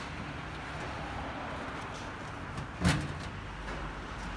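Steady low mechanical hum from an AT/CVT transmission fluid exchange machine at work on a running car, with one sharp knock about three seconds in.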